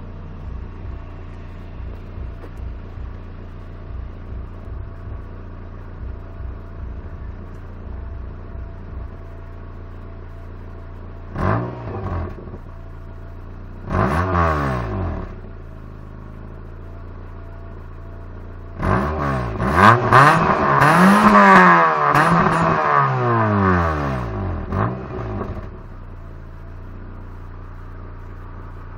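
Toyota Paseo's 1.5-litre 16-valve 5E-FE four-cylinder engine idling through a busted, holed exhaust. It is blipped twice near the middle, then revved up and down repeatedly for several seconds before settling back to idle.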